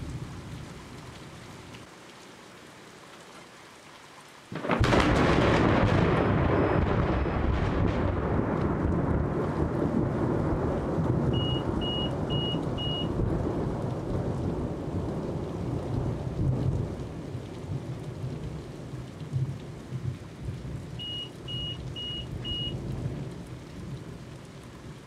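Thunderstorm: steady rain, then a sudden loud thunderclap about four and a half seconds in that turns into a long low rumble, slowly fading over the next fifteen seconds or so. Two runs of four short high beeps sound over the rumble, about halfway through and again near the end.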